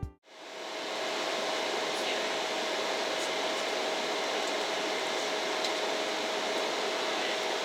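Steady cabin noise of a jet airliner in flight: an even rush with a faint steady hum running through it, fading in over the first second.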